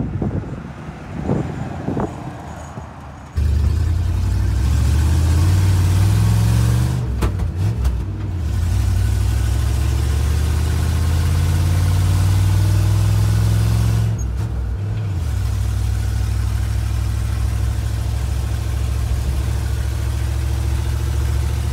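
1968 Chevy C30 tow truck driving past, then heard from inside its cab: the engine drones steadily under way, switching abruptly to this louder in-cab sound about three seconds in, with brief dips around eight and fourteen seconds in. The exhaust leaks a little where the manifolds bolt to the downpipes.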